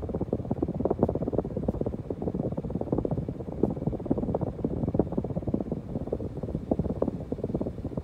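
2010 Hunter Discovery 48-inch ceiling fan running with its blades at speed: a continuous low rumble of moving air that flutters unevenly.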